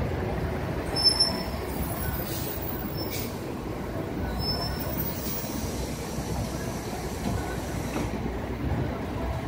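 Steady city street noise from passing traffic, with a few brief faint high squeals.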